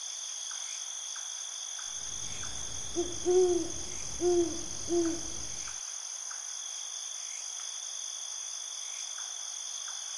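Night ambience: crickets trilling steadily, with an owl giving four short, low hoots about three to five seconds in.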